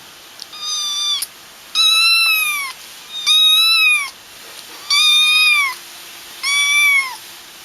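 A kitten meowing five times: high-pitched calls that rise and then fall in pitch, each under a second long, about a second and a half apart.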